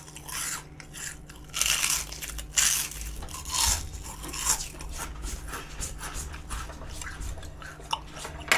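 Crisp bites and chewing of battered, deep-fried perilla-leaf tempura: several loud crunches in the first half, then softer, clicky chewing.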